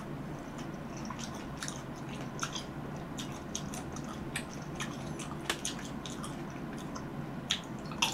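Close-miked chewing of fresh cherries: irregular small wet clicks and squelches as the flesh is bitten and worked in the mouth, with louder bites near the end.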